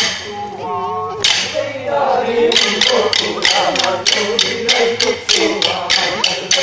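Kolkali stick dance: short wooden sticks clacking together in rhythm over a group of voices singing. The clacks are sparse at first, then from about two and a half seconds in they come quickly and evenly, several a second.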